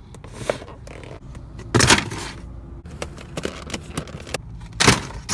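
A clear plastic clamshell takeout container being pressed shut and handled: crackling plastic with a run of clicks and scrapes, the loudest crunches about two seconds in and again near the end.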